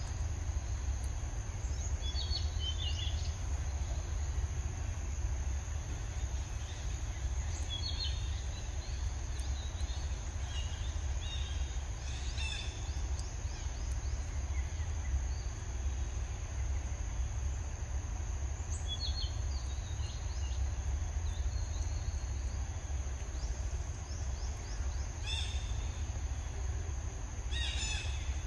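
Woodland ambience: small birds chirping now and then, more often near the end, over a steady high insect drone and a constant low rumble.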